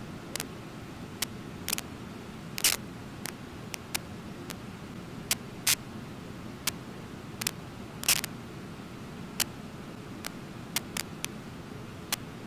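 Steady low rush of a river waterfall, with about twenty sharp, irregular clicks and crackles scattered through it that are louder than the water.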